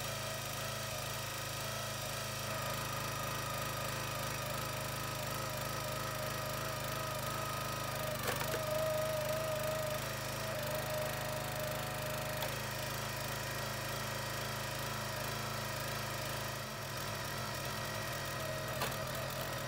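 The small gas engine of a Huskee 22-ton log splitter running steadily. About eight seconds in there is a sharp crack, followed by a higher whine that strengthens for a few seconds as the splitter works.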